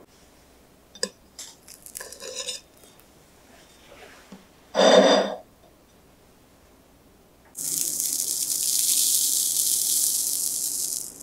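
Light clinks of a cake server and plate, then a ceramic plate knocking down onto a wooden table about five seconds in. From about two-thirds of the way through, a steady high hiss lasts about three and a half seconds as a soft, moist soufflé cake is pulled apart by hand.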